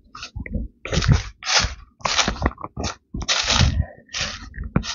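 Footsteps crunching through dry forest litter on a hillside, a crunch roughly every half second to second.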